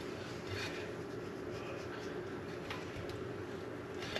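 Hands pressing a fish fillet into dry breadcrumbs on a plate, a few faint scratchy rustles over a steady low room hum.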